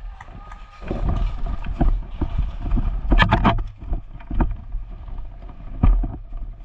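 A person running over rough ground: irregular thudding footsteps with rustling and jostling gear. There is a dense flurry of knocks a little past three seconds in and one sharp knock near the end.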